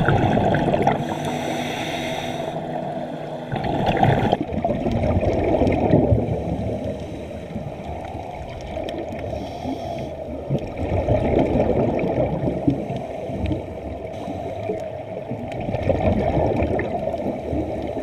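Muffled underwater sound from a camera in a dive housing: churning, gurgling water noise, dull and low with little above the midrange, rising and falling irregularly. In the first few seconds it carries a few steady tones that stop abruptly about four seconds in.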